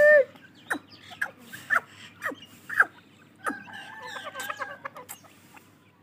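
Grey francolin (dakhni teetar) brood calling: a loud, rapidly pulsing call ends just at the start, then about five short peeps that each slide sharply down in pitch, and a rapid trilling call lasting over a second near the middle, with faint ticks between.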